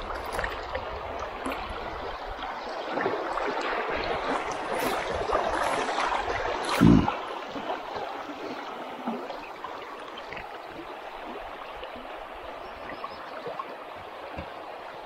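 Water of a shallow river riffle rushing and gurgling, louder in the first half and easing after that. A single dull thump about seven seconds in.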